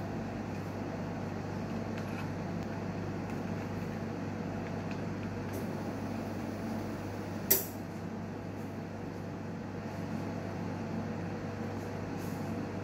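Newmed Kronos S benchtop autoclave running in its cycle: a steady low machine hum, with one sharp click about halfway through.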